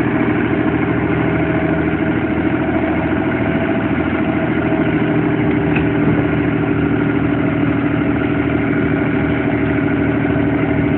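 An engine idling steadily, a constant even hum with a steady pitch that does not change.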